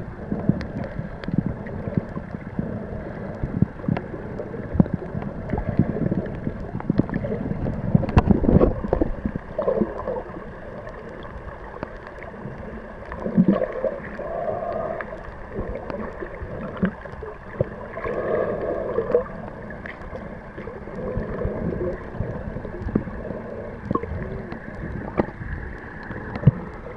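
Underwater sound from a camera submerged in shallow sea water: a steady wash of water noise with many small clicks and knocks, loudest about eight seconds in.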